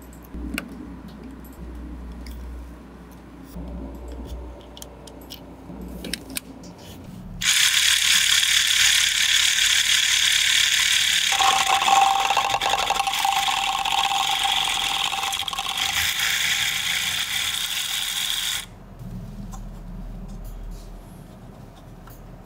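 Plastic Lego bricks and parts clicking as they are fitted together. Then a motorized Lego Technic drill starts abruptly, and its motor and gear train whir loudly for about eleven seconds. A steady tone joins partway through, and the whir cuts off suddenly.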